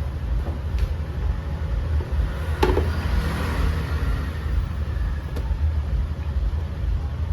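A steady low rumble, with one sharp knock about two and a half seconds in.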